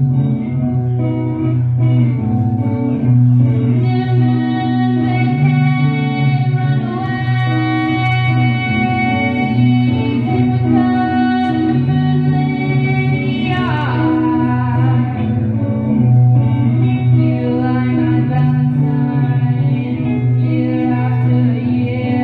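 Live music: guitar playing a repeating melody over sustained low notes, with singing. A sliding note drops in pitch about fourteen seconds in.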